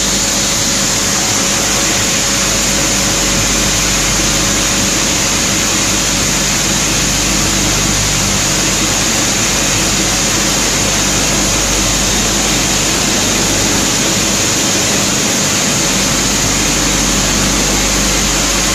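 Waste-plastic PP/PE separating machinery running: a loud, steady mechanical noise with a constant high whine and a low hum, unchanging throughout.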